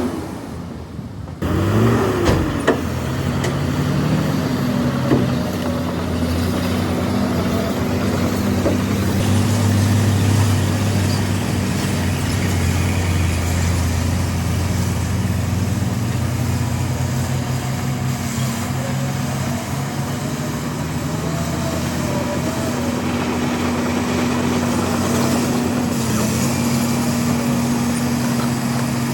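Heavy diesel earthmoving machinery running steadily, with a faint wavering whine above the low engine note. The sound dips briefly just at the start.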